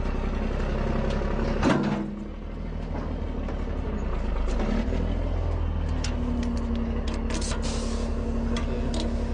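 Truck's diesel engine idling, with one loud knock about a second and a half in, after which the engine sound dips briefly and recovers. A steady hum joins about six seconds in, and a short hiss of air comes near the end among light clicks.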